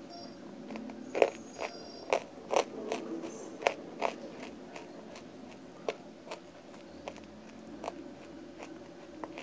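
Crunchy bites and chewing of hard, chalky lumps of Nkomatt held close to the mouth: a quick run of sharp crunches in the first four seconds, then fewer, fainter ones.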